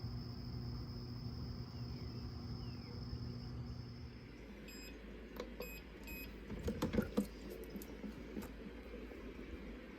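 An appliance's steady hum and high whine stop about four seconds in, followed by three short electronic beeps and then a few clicks and knocks.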